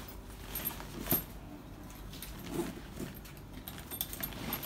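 Hands handling a nylon tool backpack: fabric rustling and brushing as the lid flap is pressed down, with light metallic clinks of the zipper pulls and a sharper click about a second in.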